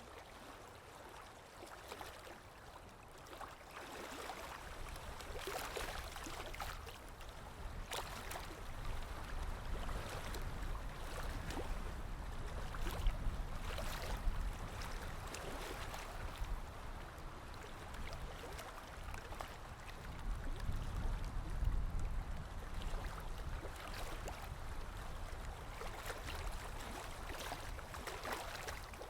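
Sea waves washing onto the shore, a continuous wash of water that swells and ebbs every several seconds over a low rumble.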